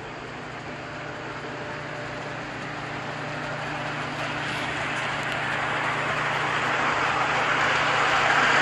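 G scale model diesel locomotive pulling freight cars along the track, its wheels and motor making a steady rushing noise that grows louder as it approaches, with a faint steady low hum underneath.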